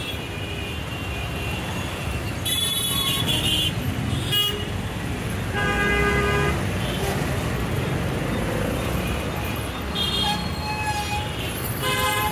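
Heavy city traffic at a standstill: a steady rumble of car, bus and motorbike engines, with horns honking again and again, some long blasts and some short toots, of several different pitches. Unfiltered street noise of the kind called noise pollution.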